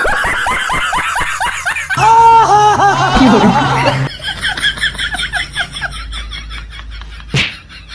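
Canned laughter: several voices laughing in quick, repeated 'ha-ha' bursts, loudest in the first half and fading toward the end, with one short sharp hit near the end.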